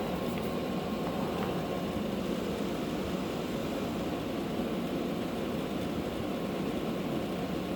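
Vacuum cleaner motor running with a steady whooshing hum.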